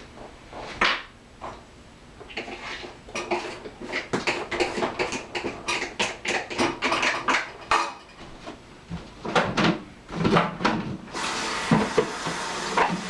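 Dishes and cutlery clattering as a toddler's lunch is cleared away, a quick run of clicks and knocks. About eleven seconds in, a steady rushing noise begins.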